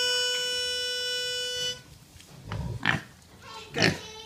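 A single steady reed note, like a harmonica or pitch pipe, held for about two seconds, then pigs grunting a few short times.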